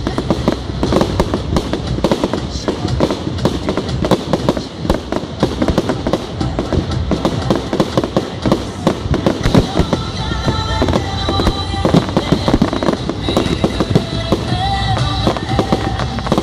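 A fireworks display going off without pause: dense, rapid crackling and bangs of bursting aerial shells and crackle effects. Music plays along underneath, and a few held tones show through the crackle from about ten seconds in.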